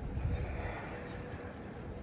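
Outdoor background noise: a low rumble with a faint steady hum, and a short hiss about half a second in.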